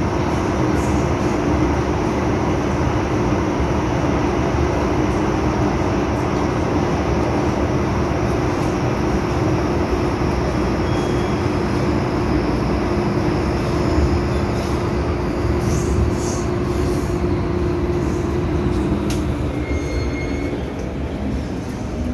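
Cabin noise of an MTR M-Train electric multiple unit running between stations: a steady rumble of wheels on rail with a steady low hum that cuts out about twenty seconds in, followed by a few faint high whines and clicks.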